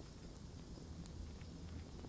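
Wood campfire burning: a steady low rush of the flames with a few sharp crackles and pops from the burning wood.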